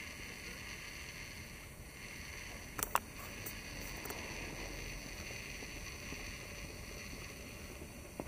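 Steady low hiss of outdoor background noise with faint high steady tones, broken by two sharp clicks close together about three seconds in.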